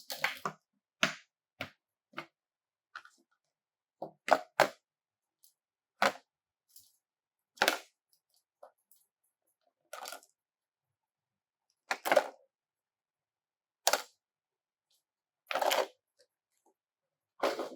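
Small plastic toy pieces being handled, giving separate sharp clicks and taps every second or so, a few of them in quick pairs, with dead silence between.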